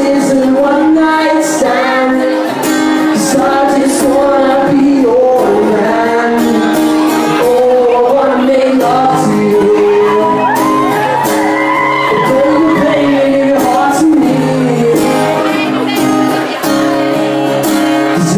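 Live acoustic guitar strummed under a male voice singing a pop love song, with shouts from the audience.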